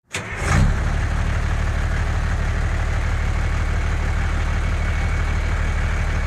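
A large engine running steadily with a fast, even low throb. It starts abruptly with a short burst of noise in the first half second.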